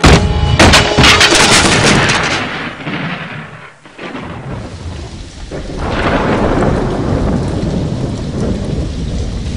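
Cartoon sound effect of a heavy stone grinding stone (aattukallu) tipped off a lorry: a sudden loud crash with a long rumble that dies away. About six seconds in, a second steady rumble builds up.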